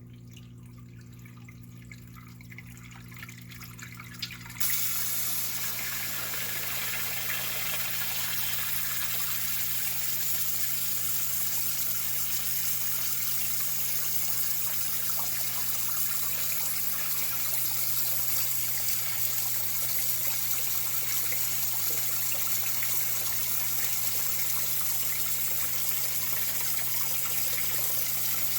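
Water gushing in a sump pit. It starts suddenly about four and a half seconds in and then runs on steadily over a steady low hum.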